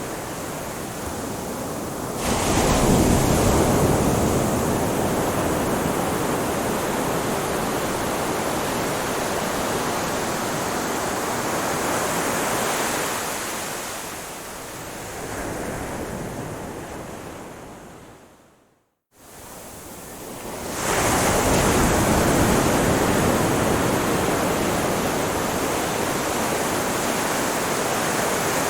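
Ocean surf: a steady rush of waves that swells as a wave breaks about two seconds in, ebbs, and swells again about twenty seconds in. Shortly before the second swell the sound fades and cuts to a moment of silence.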